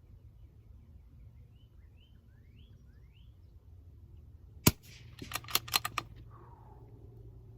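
A single sharp shot from a Bergara B14R .22 LR bolt-action rifle, followed about half a second later by a quick run of about six lighter metallic clicks as the bolt is worked to chamber the next round.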